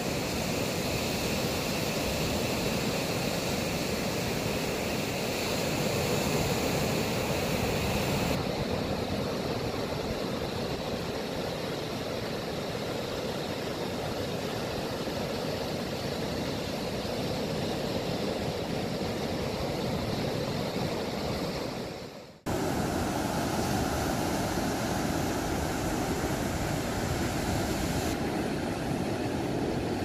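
Pacific Ocean surf breaking and washing up a sandy beach: a steady rushing noise that dips out briefly about two-thirds of the way through.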